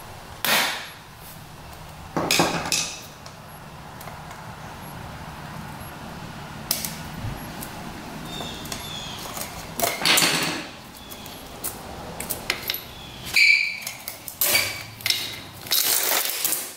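Metal clinks and taps of a long screwdriver-like tool working at a rusty motorcycle drive chain on the rear sprocket. Near the end come quicker clatters and a brief metallic ring as the chain links are pulled loose.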